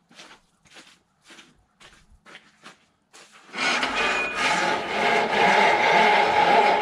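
Short rasping strokes, about two a second, then a loud steady machine starts running about halfway through.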